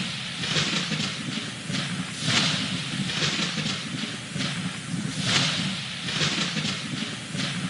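Synthesized space-themed ambient sound: a hissing, rushing noise that swells roughly every three seconds over a steady low rumble.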